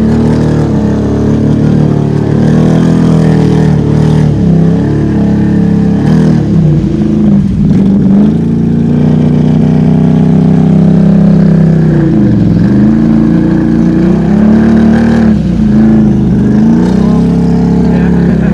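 ATV engine held at high revs with its wheels spinning in deep mud, the revs sagging and climbing back several times as the bogged-down quad is worked through a mud hole.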